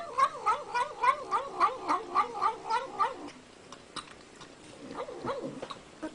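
A cat giving a rapid run of short, wavering calls, about four a second, for roughly three seconds, then a few fainter calls.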